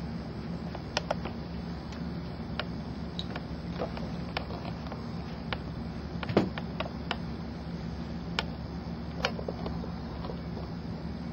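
Scattered light clicks and taps of a marker and hands working at a whiteboard, with a louder knock about six seconds in, over a steady low room hum.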